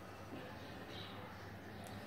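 Faint room tone with a low steady hum, and a short faint high chirp about a second in.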